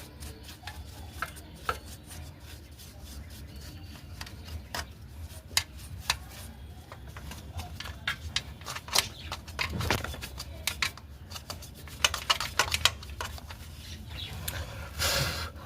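Irregular metal clinks and taps of hand tools and parts being handled, with a quick run of clicks about twelve seconds in and a short scraping rattle near the end.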